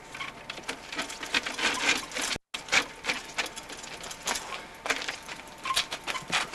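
Mountain bike clattering on stone steps as it is hopped from step to step: a run of irregular sharp knocks and clicks from tyres and frame landing, breaking off for an instant a little over two seconds in.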